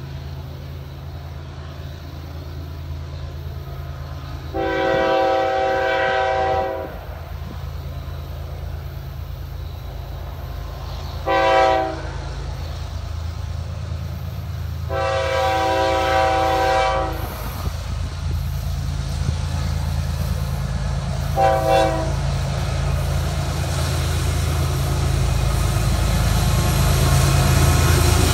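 Florida East Coast freight train led by GE ES44C4 locomotives approaching a grade crossing: the lead locomotive's multi-tone air horn sounds four times, long, short, long, short, as a crossing warning. Under it the low engine drone grows steadily louder as the locomotive draws near and passes at the end.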